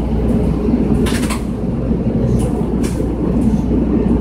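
Inside a moving road vehicle: a steady low rumble of motor and tyres on the road, with a few brief rattles.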